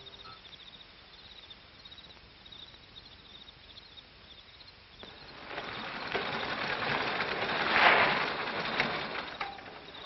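Faint crickets chirping steadily, then a rushing noise swells over a few seconds, is loudest about eight seconds in, and dies away.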